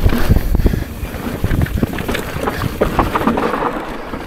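Downhill mountain bike clattering at speed over rough ground: a rapid, irregular run of knocks and thuds from the tyres and frame, with wind buffeting the microphone.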